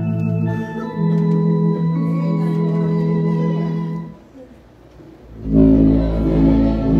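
Organ playing a hymn in slow, sustained chords. The sound falls away for about a second just past the middle, then a louder, fuller chord with deep bass comes in.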